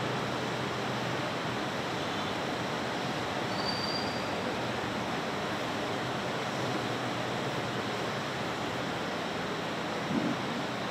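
Steady, even hiss of room noise with no voices. A faint short high tone comes about four seconds in, and a brief low bump just after ten seconds.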